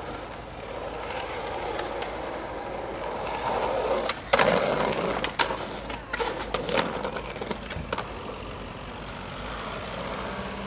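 Skateboard wheels rolling on pavement, then the board grinding along a concrete curb edge about four seconds in, followed by a run of sharp clacks as it comes off, and rolling again.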